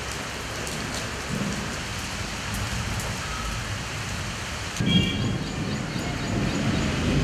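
Steady monsoon rain falling, with low rolling thunder that swells about a second in and comes in again, louder, from about five seconds in.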